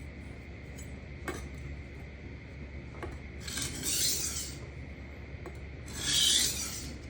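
Kitchen knife edge drawn across an Atoma diamond sharpening plate in two light scraping strokes, one about three and a half seconds in and one about six seconds in, with a couple of small clicks before them. These are passes with almost no pressure, made to knock over the burr.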